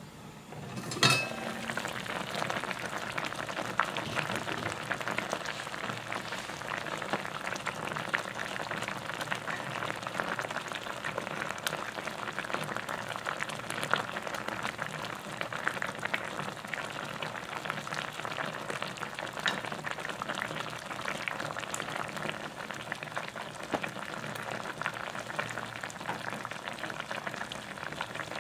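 A stainless steel pot lid lifted with a sharp metal clink about a second in. Then spicy braising sauce bubbles hard around fish in the open pot, a steady crackle of many small pops.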